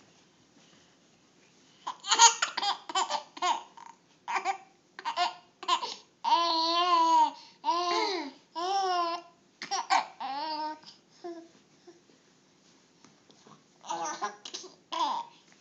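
A baby giggling and squealing with laughter in a run of short bursts and a few longer, held squeals, then a pause of a few seconds before a last burst of giggles near the end.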